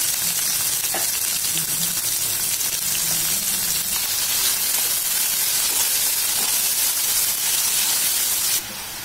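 Chopped onions sizzling in hot oil with fennel seeds, curry leaves and green chillies in a stainless steel kadai: a steady frying hiss, with a spatula stirring near the end. The sizzle cuts off suddenly shortly before the end.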